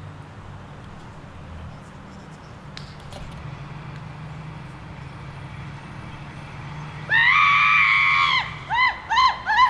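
A woman screams: one long, high scream about seven seconds in, then a string of short shrieks. A steady low rumble runs underneath.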